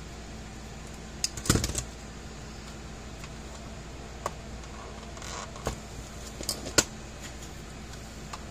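Needle-nose pliers and the plastic case and parts of an electric fence charger being handled on a workbench: scattered clicks and light knocks, with a quick clatter about a second and a half in and the sharpest click near seven seconds, over a steady low hum.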